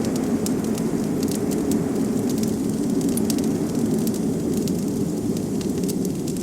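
Wood fire crackling and popping in a fireplace, with a steady low rush of wind beneath it.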